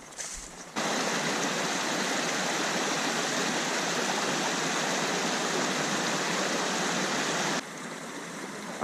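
Steady rushing water of a small mountain stream, close and loud, starting abruptly about a second in and cutting off suddenly near the end, with fainter flowing-water ambience before and after.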